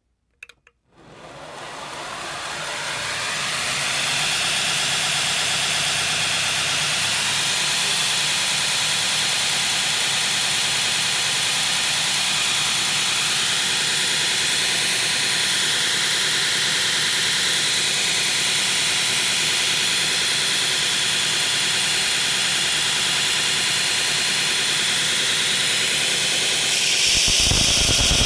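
Belt grinder with a 36-grit belt switched on, spinning up over about three seconds and then running steadily. Near the end it grows louder and rougher as the blade is put to the belt to grind a bevel.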